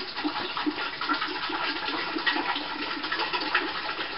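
Spring water pouring from a plastic gallon jug into a stainless steel pot, a steady splashing stream with a rapid, regular pulsing throughout.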